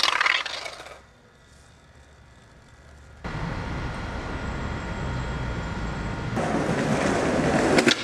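Skateboard wheels rolling over paving slabs, growing louder over the last second and a half, with sharp clacks of the board at the very end. Before that there is a steady low rumble after a quieter stretch.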